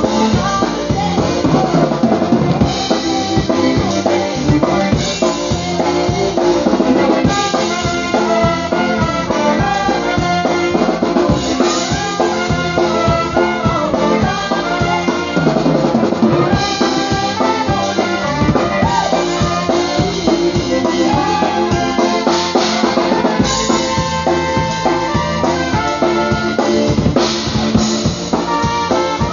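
Live polka band playing dance music, with a drum kit keeping a steady beat under the melody instruments.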